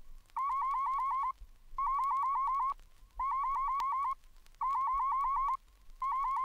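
Warble-tone test signal played from a stereo test LP: a mid-pitched tone wobbling in pitch about seven times a second, in repeated bursts of about a second with short gaps between, used for setting stereo balance. A couple of faint record clicks.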